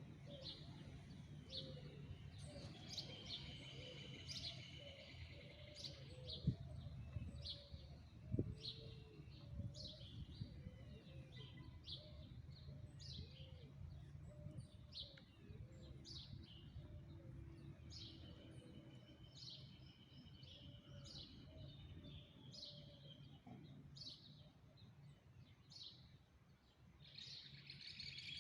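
Birds chirping: short high chirps about every second, with a few longer high trills, over a faint low steady hum.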